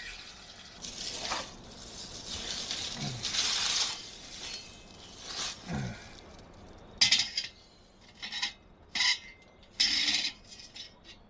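Metal cooking utensils being handled and set down: rustling and scraping at first, then a run of short sharp clinks and knocks from about seven seconds in.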